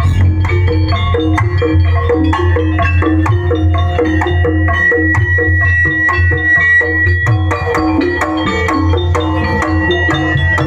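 East Javanese jaranan gamelan music: mallet-struck metallophones play quick repeating patterns over hand drums, with a high note held from about four to seven seconds in.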